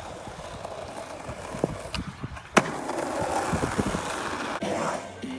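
Skateboard wheels rolling over rough pavement, with scattered small clicks and knocks and one sharp, loud crack of the board about two and a half seconds in.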